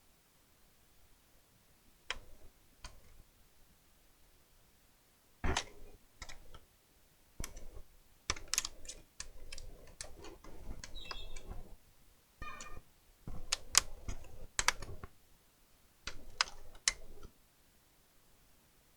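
Irregular plastic clicks, taps and knocks from a laptop's case and parts being handled and pried at during disassembly, with a few short scraping sounds in the middle. They start after a couple of quiet seconds.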